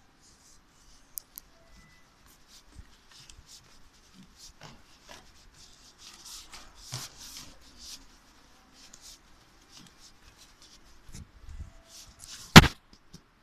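Handling noise from a handheld phone: soft rustles and small taps as it is carried, then one sharp loud knock near the end as it bumps against something.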